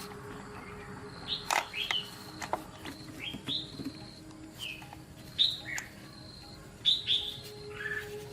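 Small birds chirping in short falling notes, repeated through the stretch. A few sharp taps are mixed in, the loudest about a second and a half in, over a faint steady hum.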